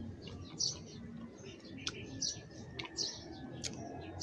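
Small birds chirping over and over in the background, with a few sharp clicks and mouth noises from someone eating grilled milkfish with his fingers.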